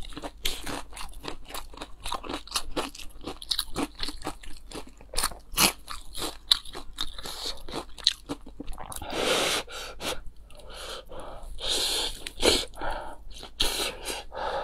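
Close-miked eating sounds: many quick crisp crunches of biting and chewing a pan-fried vegetable pancake, with a few longer, noisier mouth sounds in the second half.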